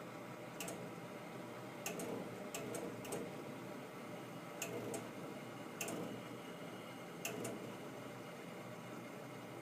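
Sharp single clicks at irregular intervals, about eight of them, over a steady faint hiss; the clicks stop a couple of seconds before the end.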